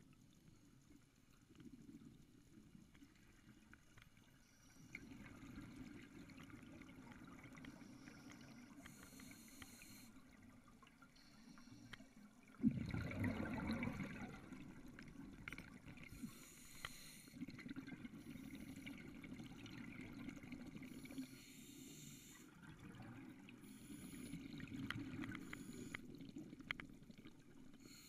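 Scuba diver breathing through a regulator, heard underwater: brief high hisses of the inhalations and low bubbling of the exhalations, with a sudden louder rush of bubbles about halfway through.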